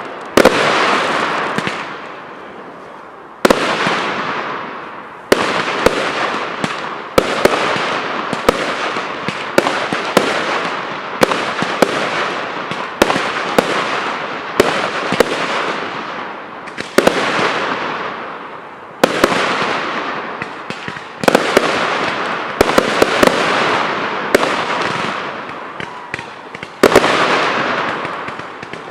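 Professional fireworks display: aerial shells bursting with sharp bangs every one to two seconds, each followed by a crackling, hissing tail that fades before the next burst.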